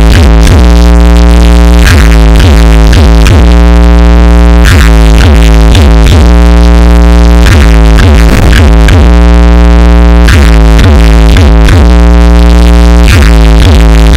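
Electronic dance music played through a large DJ speaker stack during a sound test: a deep, constant bass with repeated swooping synth sweeps in a steady rhythm. It is so loud that the recording's level stays pinned at its maximum.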